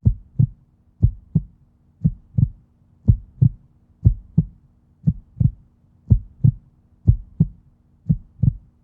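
Heartbeat sound effect: a low double thump, lub-dub, repeating about once a second at an even pace over a faint steady hum.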